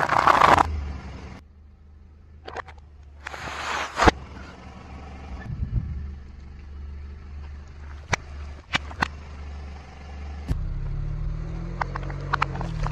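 A car tyre rolling slowly over and crushing things on asphalt, over the car's low engine hum. It opens with a loud burst of crunching as dry pasta is crushed. A second loud crunch or burst comes around four seconds in, then a few sharp pops. The engine hum grows louder near the end.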